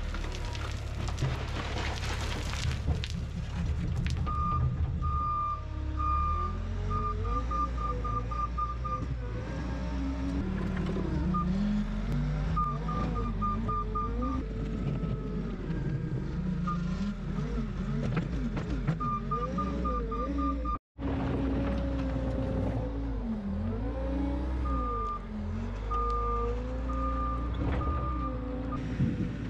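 Heavy machine engine running steadily, with several bursts of rapid reversing-alarm beeps.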